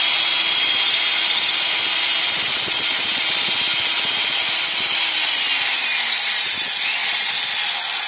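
Corded electric drill running steadily as its bit bores into a masonry wall, with a grinding whine; its low tone sinks slightly over the last couple of seconds as the bit goes deeper.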